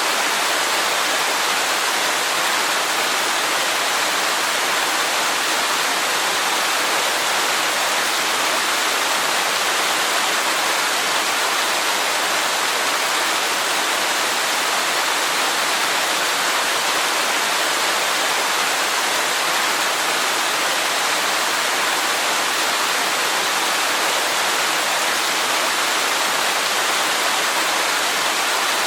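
Waterfall rushing steadily: an even, unbroken hiss of falling water with little deep rumble.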